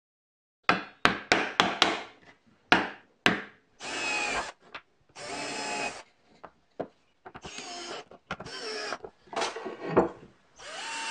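A few sharp knocks on wood, then a cordless drill run in about six short bursts under a second each, drilling and driving screws into a plywood cross brace.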